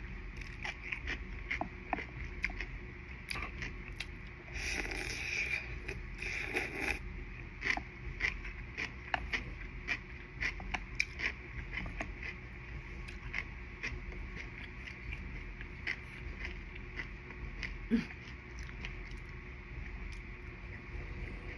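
Close-miked eating of soba noodles in kimchi juice: wet chewing and frequent small mouth clicks, with two longer slurps about five and six and a half seconds in.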